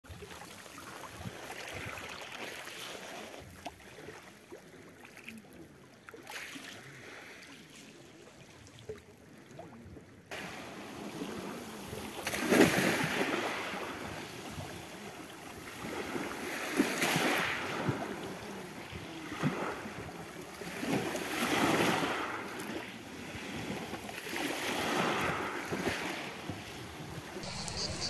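Sea waves washing onto the shore, each surge swelling and falling back every few seconds. The sound is quieter for the first ten seconds and steps up abruptly about ten seconds in.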